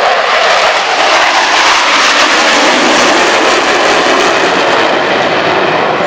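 Loud, even roar of four F/A-18 Hornet jets' engines flying a slow turning pass in diamond formation, at its harshest and hissiest about two to three seconds in.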